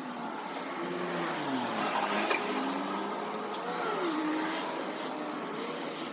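A vehicle engine running, its pitch sliding down and up again a few times as its speed changes, with a sharp click about two seconds in.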